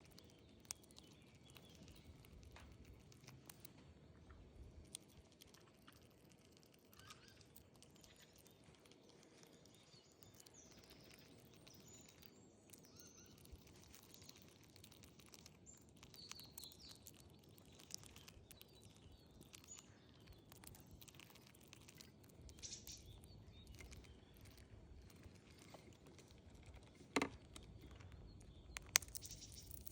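Quiet outdoor ambience with scattered faint bird chirps and a few sharp clicks, the two loudest near the end.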